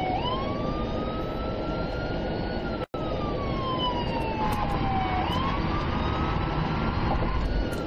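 Police car siren on a slow wail, rising and falling about every five seconds, heard from inside the moving patrol car over road and engine noise. The sound drops out for an instant about three seconds in.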